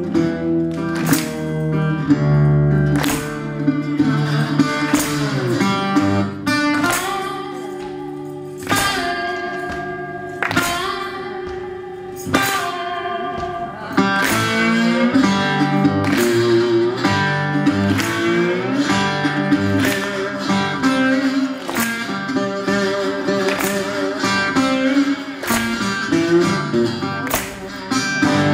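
Metal-bodied resonator guitar picked and strummed in a blues instrumental break, some notes bent or slid, with percussion hitting along.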